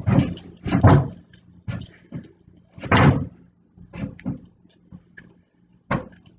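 Fork knocking and scraping on a dinner plate in a series of irregular short thuds, loudest about a second in and again about three seconds in.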